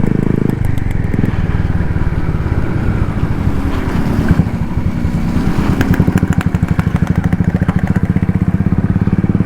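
Royal Enfield Classic 350's single-cylinder engine running under way, its firing beat becoming stronger and more pronounced in the second half. Short clatters come through briefly in the middle.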